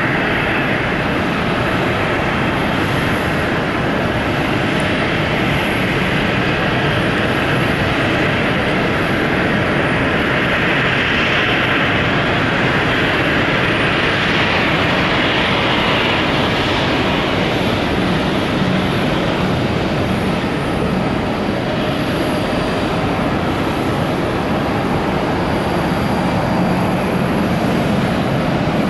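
Jet airliner engines running, a loud, steady rushing noise that swells about halfway through, with a low hum coming in during the later part.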